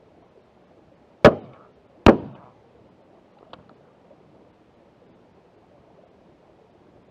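Shotgun fired twice in quick succession, just under a second apart, each shot a sharp crack with a short echoing tail. A light click follows about a second and a half later.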